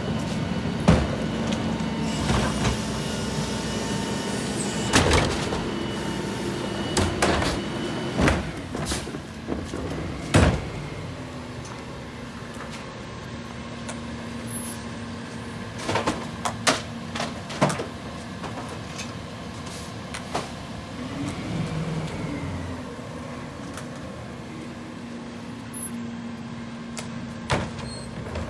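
New Way rear-loader garbage truck running at idle with a steady hum, over repeated knocks and clatter of plastic wheeled trash carts being rolled up and banged at the rear hopper as they are emptied.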